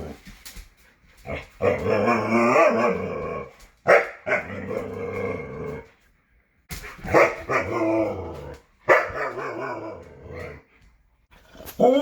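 Huskies 'talking': a run of drawn-out, wavering vocal calls with short pauses between them, and a call that rises and then falls in pitch near the end.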